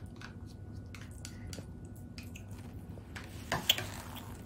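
A toddler chewing food, with small wet mouth clicks and smacks, then one sharp slap near the end as he claps his hands together.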